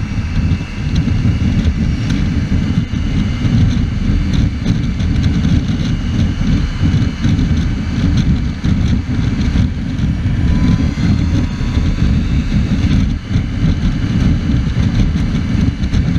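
Wind buffeting the microphone of a camera mounted on a motorcycle riding at highway speed, a loud, rough low rumble, with the motorcycle's engine and road noise underneath.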